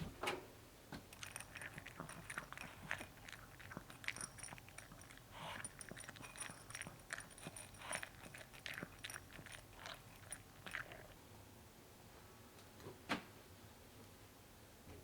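Close handling of laundry: a run of soft rustles and small clicks that stops about eleven seconds in, followed by one sharp click a couple of seconds later.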